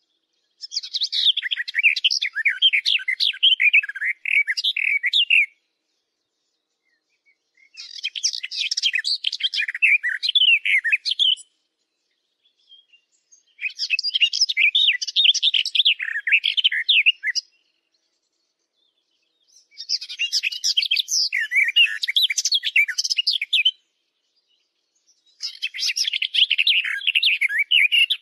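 Small birds twittering in dense, fast chirps, in five bursts of about four seconds each with complete silence between them.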